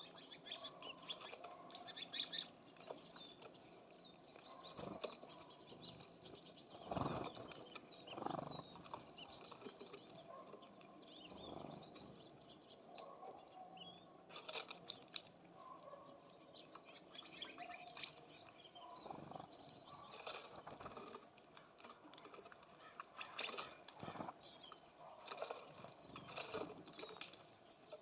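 Small songbirds at a feeder: short, high chirps scattered throughout, with brief wing flutters every few seconds as birds land and take off.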